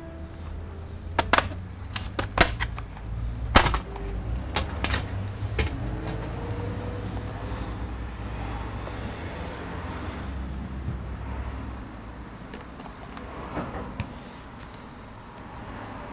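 Sharp clicks and knocks, about eight of them in the first six seconds, as an opened Dell XPS 13 laptop is handled on a workbench and its internals are worked with a plastic pry tool, over a low rumble of handling.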